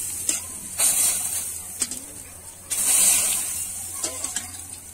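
Salt-and-water solution splashed onto a hot upturned kadhai, hissing and sizzling as it boils off the metal, in two bursts about one and three seconds in that die away. This coating seasons the pan so the rumali roti won't stick.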